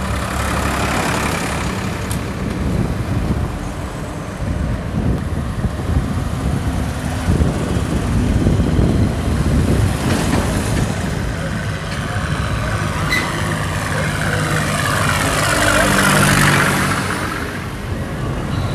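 Diesel tractors towing loaded trolleys driving past one after another, their engines running with a steady low rumble that grows louder as each one comes close. The loudest pass-by comes near the end, then fades.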